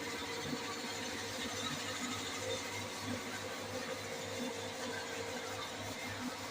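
A small machine running steadily, with a low throb pulsing at an even rate of about two to three a second under a constant hiss.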